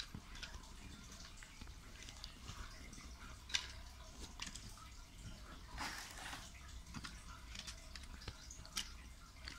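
Small clicks and taps of a plastic toy train and its clip-on plastic wing piece being handled and set down on a cloth-covered surface, with a short rustle about six seconds in.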